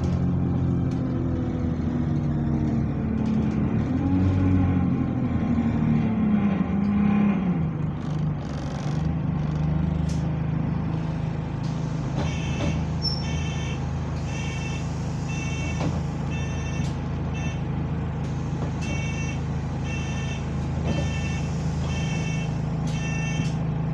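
Single-deck bus's diesel engine heard from inside the saloon, its note rising and falling with a moaning tone for the first several seconds, then settling to a steady drone. The uploader puts the moan down to a burst turbo. From about halfway, short high beeps repeat roughly once or twice a second.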